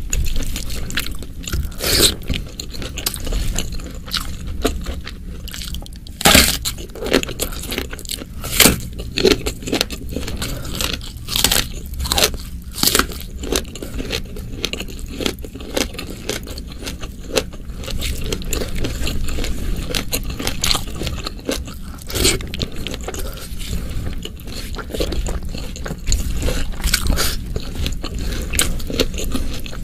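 Close-miked eating: wet chewing and lip smacks on a mouthful of rice and spicy beef stir-fry, with fingers scraping and gathering rice across a banana leaf near the start and again near the end. The sounds come as a steady run of irregular sharp clicks and smacks.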